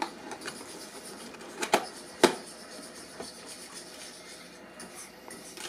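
Plastic blister packs of fishing lures and a small cardboard box being handled: light rubbing and scraping, with two sharp clacks about two seconds in.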